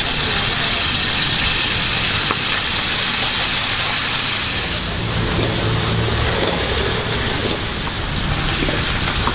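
Cabbage stir-frying in a wok over a gas burner: a steady sizzling hiss over the burner's low rumble.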